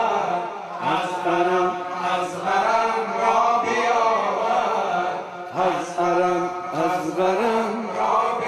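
Men's voices chanting a slow, melodic Shia mourning lament (noha) refrain in Persian.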